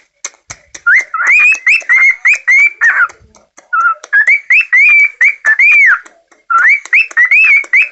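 Pet bird whistling: quick runs of short notes that glide up and down, with sharp clicks between them, in three bursts separated by brief pauses.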